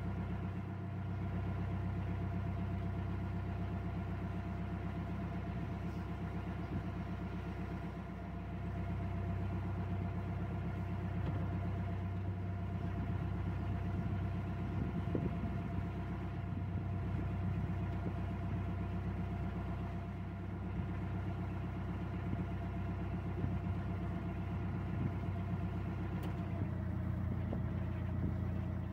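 Narrowboat's diesel engine running steadily while the boat cruises, an even low chug with a faint steady whine above it.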